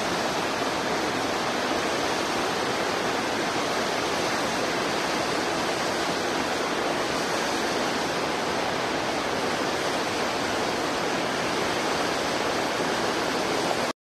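Steady, even rushing noise that cuts off suddenly near the end.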